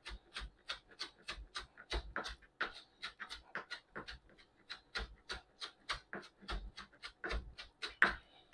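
Chef's knife chopping rapidly on a plastic cutting board, mincing onion: an even run of short knocks, about three to four a second.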